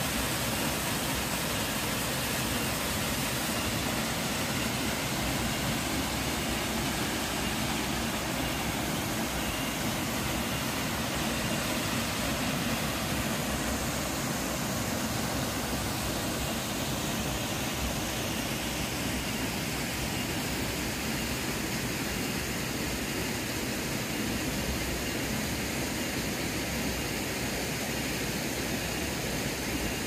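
A small waterfall dropping into a pool: an even, unbroken rush of falling water.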